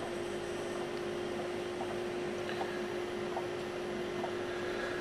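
Steady electrical hum at a single pitch over a faint even hiss, from the running bench electronics, with a few faint ticks.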